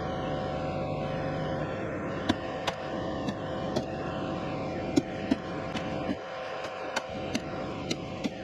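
Telehandler engine running steadily. Over it come about a dozen sharp, irregularly spaced knocks from work at the garage gable.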